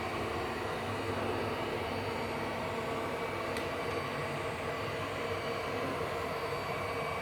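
ILIFE W400 floor-washing robot running with a steady motor hum, with one faint click about three and a half seconds in.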